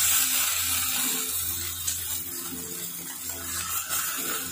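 Beef steaks sizzling in a little olive oil on a very hot ridged grill pan as they are seared and turned over with tongs.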